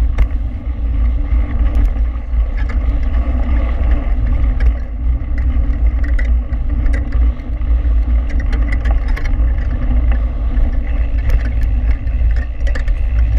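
Wind buffeting an action camera's microphone at speed over the rumble of mountain bike tyres rolling on a gravel road. Scattered clicks and rattles run through it.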